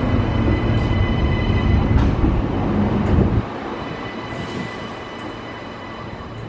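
Electric multiple-unit passenger train running past close by: a loud low rumble with a faint steady high whine. About three and a half seconds in, the sound drops suddenly to the quieter low running of a diesel locomotive on a nearby track.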